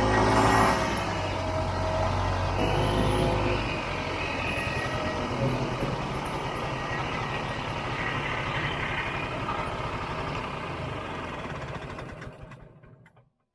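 Vintage two-stroke snowmobile engine running as the sled moves slowly over snow, louder for the first few seconds and then easing off. The sound fades and cuts off near the end.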